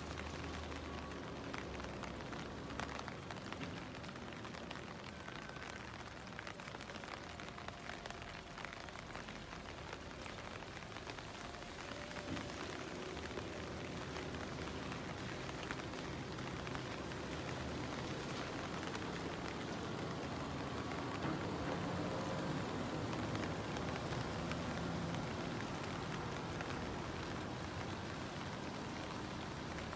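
Steady heavy rain falling on wet pavement, with the low rumble of a heavy truck's engine underneath, a little louder past the middle as it passes hauling a trailer load.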